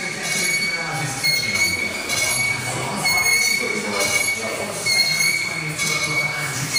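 Cable machine's pulleys squealing with each rep of a cable preacher curl, a thin high squeal that comes back about once a second.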